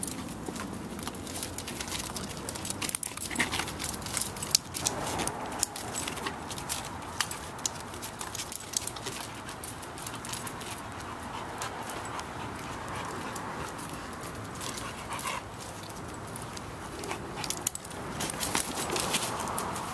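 A dog struggling on a leash, jumping up at its handler, panting and scuffling, with frequent sharp clicks and jingles from its collar and leash hardware throughout.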